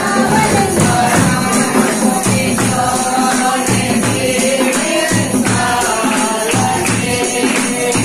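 Devotional song: voices singing over a steady beat of shaken tambourines and other percussion.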